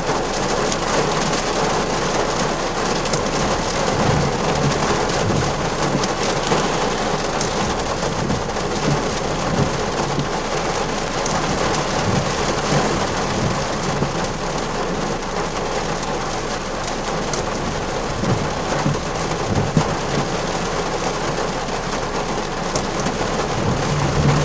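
Heavy rain hitting a car's roof and windshield, heard from inside the car, as a dense, steady hiss and patter.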